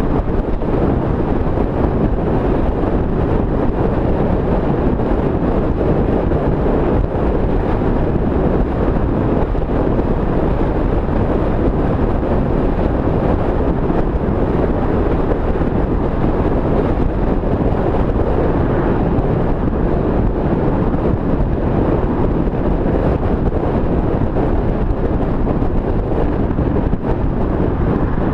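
Steady wind rush buffeting the microphone of a camera mounted on the bonnet of a car cruising on an open road, mixed with constant road noise and no distinct engine note or events.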